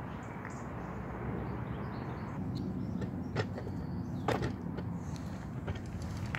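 Steady low rumble of wind on a phone microphone while walking, with a few short sharp taps from about halfway in.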